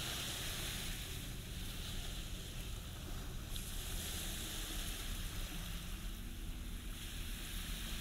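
Small ocean waves breaking and washing up onto a sandy beach, the hiss of the surf swelling and fading every few seconds, over a low steady hum.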